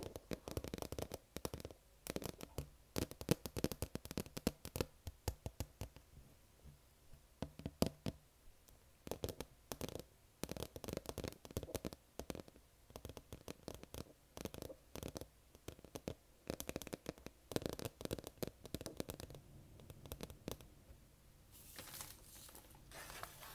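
Long acrylic fingernails tapping on a vinyl LP record: quick runs of sharp clicks with short pauses between them. Near the end, a short rustling hiss as the record is handled.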